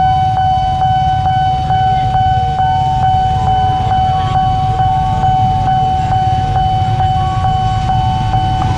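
Level-crossing warning bell ringing in a steady fast rhythm, about three strikes a second, over the low rumble of a passing train.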